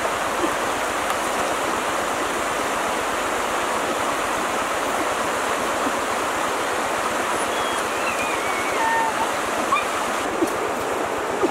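Steady rushing of a shallow river running over rocks, with a few faint, short high chirps near the end.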